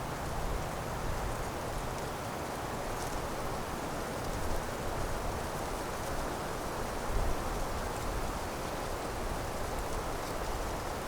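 Steady outdoor ambient noise: an even hiss with soft low rumbles now and then.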